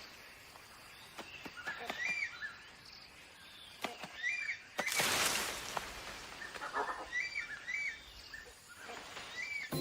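Rainforest ambience: a bird repeats a short, arched call every second or two, with faint clicks around it. About five seconds in comes a loud, brief rushing hiss.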